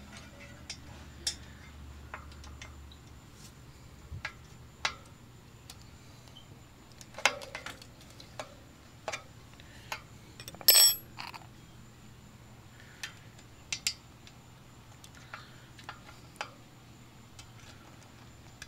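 Scattered small metal clicks and clinks from a bicycle disc brake caliper and hex key being handled as the caliper is fitted to its mount. The loudest is a ringing clink a little past the middle.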